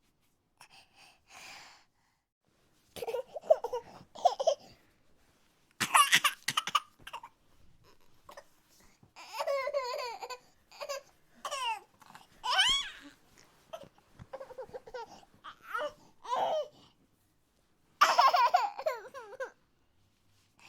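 Cartoon emoji sound effect: a voice in short, exaggerated bursts of laughing-sobbing sounds, the pitch sliding up and down, with brief silent gaps between the bursts.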